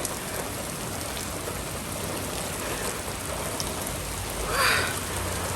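Steady rain falling and pattering, with a brief louder burst of noise about four and a half seconds in.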